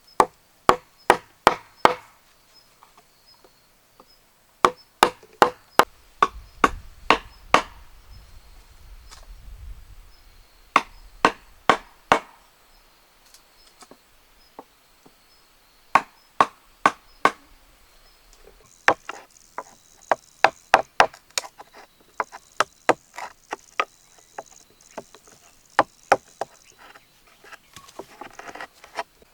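Repeated chopping strikes on wood, coming in runs of several sharp blows about three a second with short pauses between runs.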